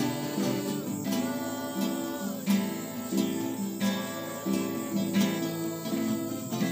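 Acoustic guitar music, chords strummed in a steady rhythm.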